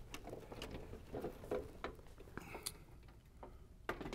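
Light clicks, taps and shuffles of a plastic mini split indoor head being carried and set up against its metal mounting brackets and back plate, with the sharpest knocks near the end as it goes into place.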